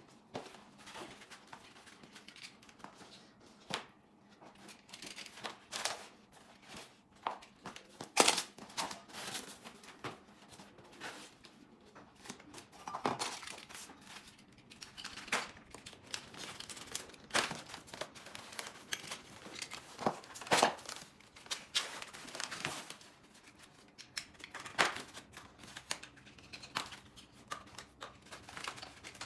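Plastic cable ties snipped one after another with a small handheld cutter, irregular sharp clicks, amid rustling and crinkling of foam and paper packaging being pulled off a bicycle frame.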